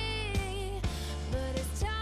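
Background music: an upbeat pop track with a gliding melody over a steady beat of about two drum hits a second.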